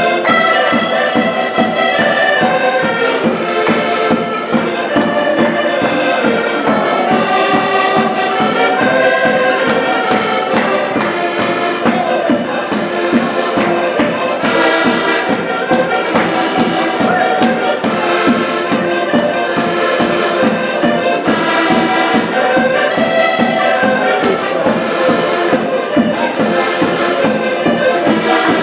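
Live folk dance music from several accordions playing a lively tune together, with a small plucked string instrument strumming along to a steady beat.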